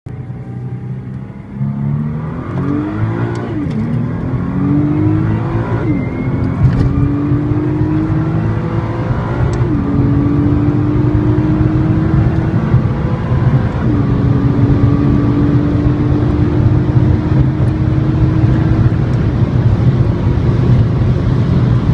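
Nissan GT-R's twin-turbo engine, heard from inside the cabin, accelerating hard from about 20 mph toward 156 mph. The engine note climbs through each gear and drops at four upshifts, the gears lasting longer as speed builds, over loud wind and road noise.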